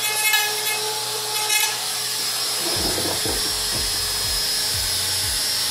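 Trim router running at high speed, its cutter whining steadily as it routs a groove in the wood of a hive body, the pitch dipping briefly as it bites. About halfway in, a repeating low falling swoop joins in beneath it.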